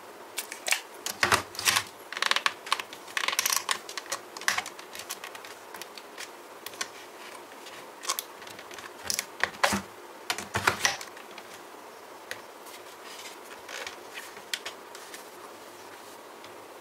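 Irregular clicks, taps and short rustles of hard plastic items being handled, in quick clusters near the start and again around the middle, then only scattered clicks.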